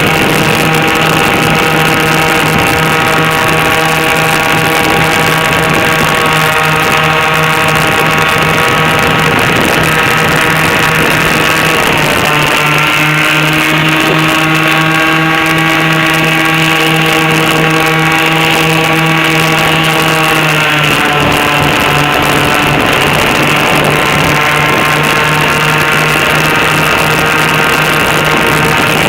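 Airboat engine and air propeller running loud and steady. About twelve seconds in, the engine note eases down as the throttle comes back, then rises again about twenty seconds in.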